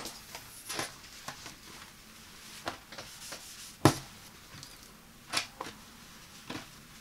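Hands brushing and tapping on a non-slip mesh rug gripper pad and handling a terry towel on it: scattered soft rustles and light taps, the sharpest tap about four seconds in and another a second and a half later.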